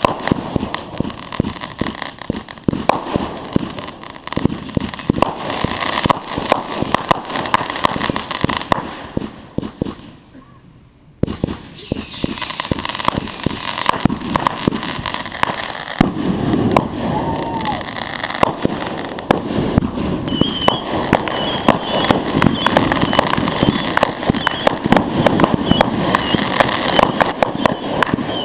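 Consumer fireworks crackling and popping in rapid, dense strings, with a brief lull about ten seconds in before the crackling resumes.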